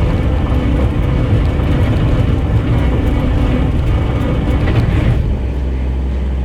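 Skid steer engine running under way with a loud, rattly drone; about five seconds in the higher rattle drops away suddenly, leaving a steady low hum.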